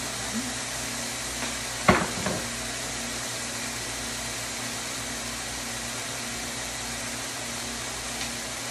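Steady hiss with a low hum from an induction cooktop heating a wok of tofu and enoki mushrooms: the cooktop's cooling fan running while the food fries. One sharp knock about two seconds in.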